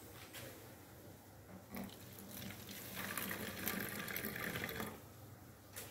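White overproof rum poured from a small glass bottle into an empty plastic bottle: a steady trickle of liquid that builds about three seconds in and stops just before five seconds.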